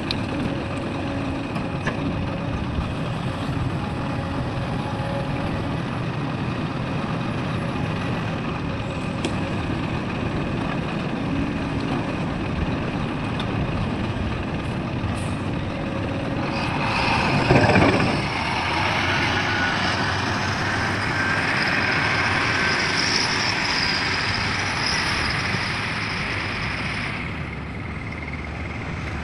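Heavy diesel machinery running steadily. About seventeen seconds in, a loud rushing burst sweeps down in pitch. It is followed by a high whine that holds for about ten seconds and then fades.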